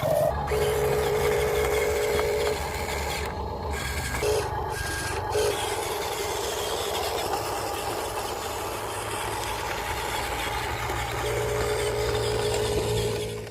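Huina 1550 remote-control excavator's electric motors whining in runs, for a couple of seconds near the start and again near the end, with two short blips between, over steady rubbing and scraping noise. The sound cuts off suddenly at the end.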